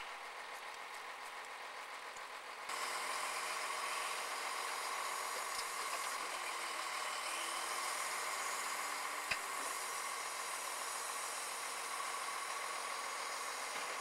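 Crane truck's diesel engine running steadily while the crane lifts a small car, with a faint steady whine; it becomes louder about three seconds in, and there is a single sharp click a little past the middle.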